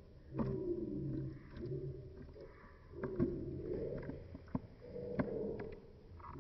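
Plott hound gnawing a hard, nubbed chew bone held in a hand, with a few sharp clicks of teeth on the bone. Low grunting sounds recur about once a second through the chewing.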